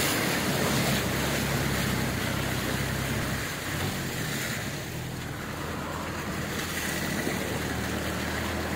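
A vehicle ploughing through floodwater: muddy water surging and splashing off the wheel and along the side, over a steady low engine hum. The splashing eases about four seconds in, then builds again.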